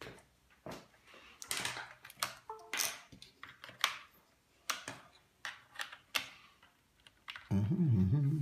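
Irregular sharp clicks and taps from a phone and charger being handled at a desk. A man's voice comes in near the end.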